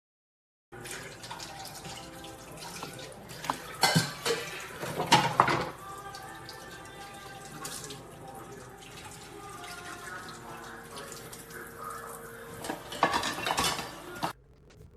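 Water running and dripping with clinks and clatter of crockery, loudest about four and five seconds in and again near the end, then cutting off suddenly.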